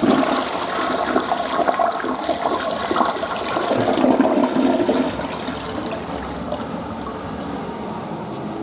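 Western-style toilet flushing: a sudden rush of water that gushes loudly for about five seconds, then eases into a quieter steady run of water.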